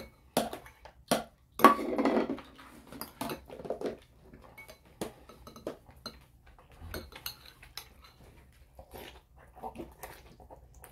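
Tableware clinking and clattering as a meal is served and eaten: bowls set down and metal chopsticks and a spoon tapping against bowls, with a louder cluster of clatter about two seconds in, then sparser, fainter clinks.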